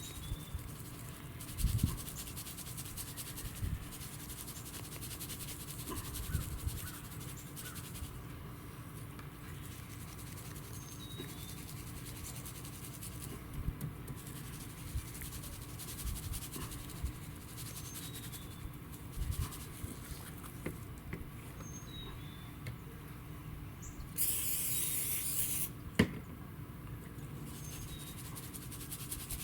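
Dry barbecue rub being rubbed by hand into a raw tri-tip roast: soft scratchy rubbing with scattered light knocks. Near the end comes a short hiss lasting about a second and a half, then one sharp click.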